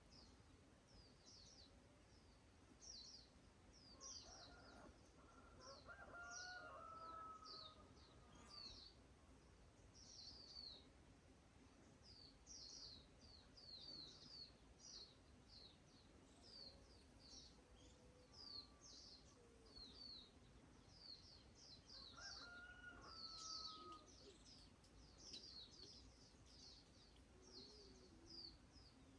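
Faint birdsong: many short, high, falling chirps repeating throughout, about one or two a second. A lower call sounds twice, a few seconds in and again near the end.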